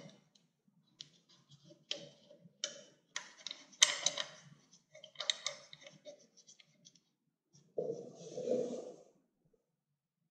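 Scattered clicks and light metallic taps of an air cleaner backing plate and its bolts being handled and fitted against a motorcycle throttle body by gloved hands, with a longer scuff about eight seconds in.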